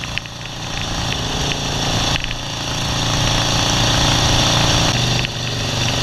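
1970 Harley-Davidson Ironhead Sportster V-twin running under way, with wind rushing over the microphone. The engine gets louder over the first few seconds as the bike pulls.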